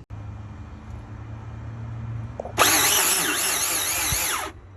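Nissan 350Z's starter cranking the 3.5-litre V6 slowly for about two seconds, its whine rising and falling with each laboured turn, then cutting off suddenly. This is the car's hot-engine slow crank, which the owner puts down to poor power reaching the starter. A low steady hum comes before the cranking.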